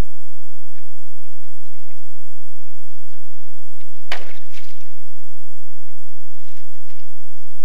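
A bull moose moving at the edge of a muddy wallow: faint clicks and rustles over steady camera-trap hiss, with one sharp snap about four seconds in and a few lighter clicks after it.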